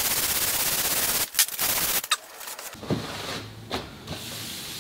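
Hand sanding a wooden rail with sandpaper: quick back-and-forth strokes of scratchy noise. The strokes are loudest in the first two seconds, with a brief break, and lighter, separate strokes follow.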